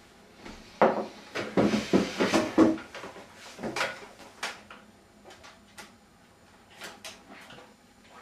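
A wooden kitchen chair pulled out and sat on: a quick run of loud knocks and scraping on the floor about a second in, then scattered lighter clicks and taps, with a glass handled at the table.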